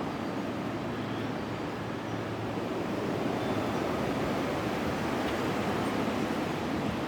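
Strong gusting wind rushing over the microphone, a steady noisy roar that swells a little about three seconds in.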